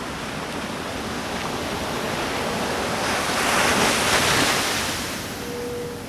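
Pacific Ocean surf: a wave breaking and washing up the shore, the rush of water swelling to its loudest about four seconds in, then easing off.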